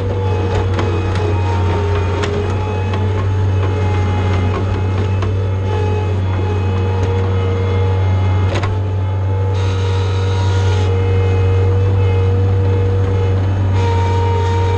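John Deere skid steer's diesel engine running steadily under load, with a constant whine riding over it and scattered knocks and clicks as it works straw.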